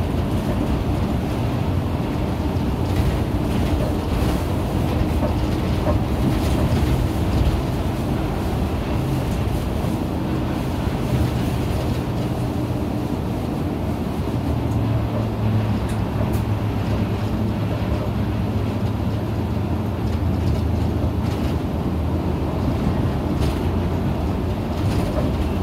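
Inside an Isuzu KL-LV280N1 city bus under way: steady engine drone and road noise. A few light rattles sound now and then, and the engine note settles into a steadier hum about halfway through.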